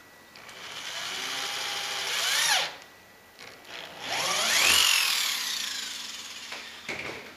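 Electric drill with a 1/2-inch bit boring into a plastic kayak hull in two runs. The motor whirs for about two seconds and stops with a short pitch swing. About four seconds in it speeds up again with a rising whine, then slowly winds down.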